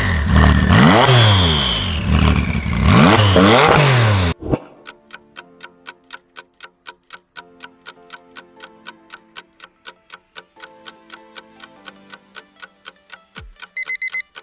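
A car engine revving hard several times, its pitch climbing and falling, cut off suddenly about four seconds in. Then a countdown clock ticking, about four ticks a second, with faint notes under it and a few short beeps near the end.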